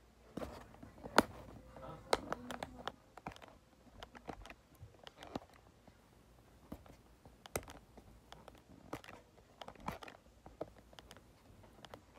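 Hands working at a hard-to-open taped candy box: scattered sharp clicks, taps and crinkles of the packaging and tape, the loudest snap about a second in.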